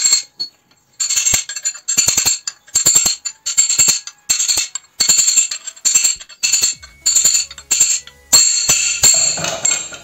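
Steel motorcycle magneto flywheel struck again and again with a metal wrench, about two hits a second, each ringing with the same bright metallic tones. The starter clutch gear is stuck fast to the flywheel because its one-way clutch cage has broken.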